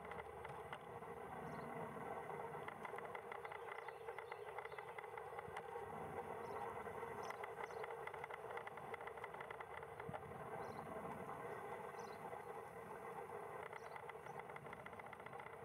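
UH-60 Black Hawk helicopter flying by at a distance: a steady, rapid chop from its four-blade main rotor over the hum of its twin turboshaft engines. It swells a little mid-way and eases slightly near the end.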